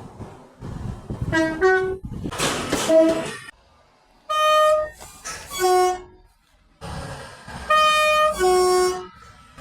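Two-tone British train horns sounding short blasts in high-then-low pairs, repeated about three times, over the rumble of passing trains.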